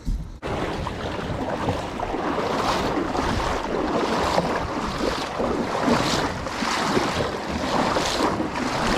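Wind buffeting the microphone over water sloshing around a kayak. The noise swells about every second and a half.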